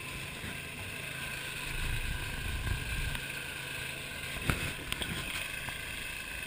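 Tow vehicle's engine running with a steady low rumble, heard from inside its cab, with one sharp click about four and a half seconds in.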